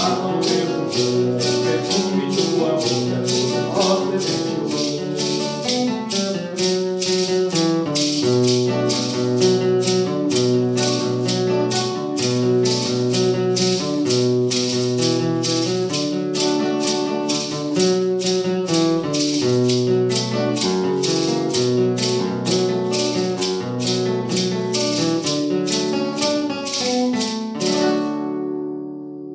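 Instrumental hymn accompaniment: an acoustic guitar playing chords while a maraca is shaken in a steady beat. Near the end the maraca stops and the guitar's last chord rings out and fades.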